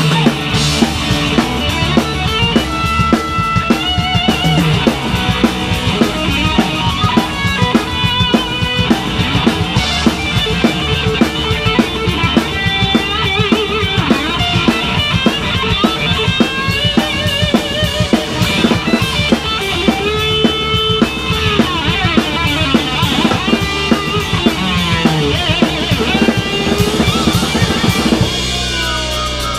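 Live band playing an instrumental stretch of a pop-rock song, without singing: a steady drum-kit beat of bass drum and snare under a bass line and a melodic lead line.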